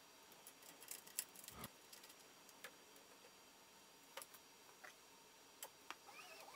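Near silence with faint, scattered small clicks and taps of hardware being handled on an aluminium-extrusion frame, and a faint wavering high tone near the end.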